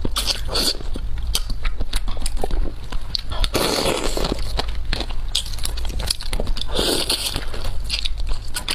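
Cooked crab shell cracking and crunching as it is bitten and pulled apart by hand and teeth: a rapid, irregular run of sharp cracks and clicks, with two longer, noisier stretches about halfway and near the end.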